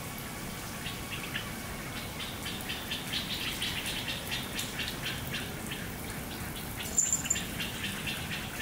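Garden fountain sprinkler spraying water in a steady hiss, with small birds chirping rapidly over it, the chirping thickening about three seconds in and a short high whistle near the end.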